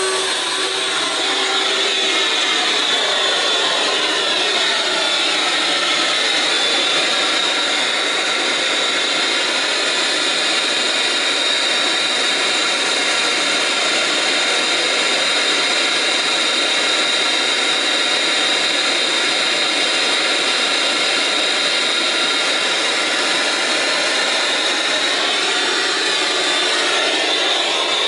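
MD central vacuum power unit running at full speed: a steady, loud rush of air with a high whine on top, its motor just spun up from switch-on.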